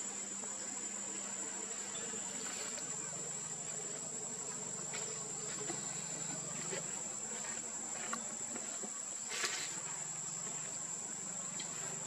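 Insects droning in a steady high-pitched whine, with a few brief noises over it, the loudest about nine and a half seconds in.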